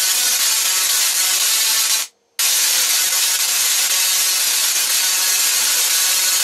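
Small solid-state Tesla coil, driven by a full bridge of 40N120 IGBTs, throwing streamer sparks into the air with a loud, steady hissing spark noise. It cuts out for a fraction of a second about two seconds in, then starts again.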